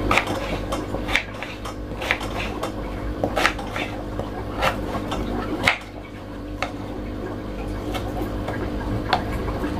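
Kitchen knife slicing through a peeled mango and tapping the wooden cutting board: irregular light knocks, about one a second, over a steady background hum.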